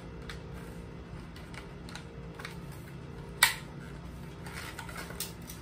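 Plastic clicks and rattles from handling an electric airsoft AK-47 replica as its charging handle is tugged at without pulling back, with one sharp, louder click about three and a half seconds in.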